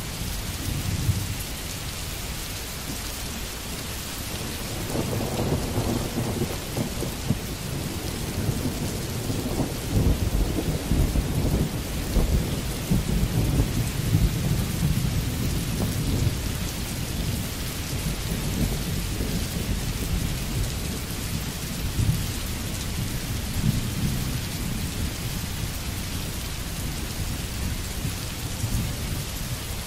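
Steady rain falling, with a long low rumble that builds from about five seconds in, peaks around the middle and dies away.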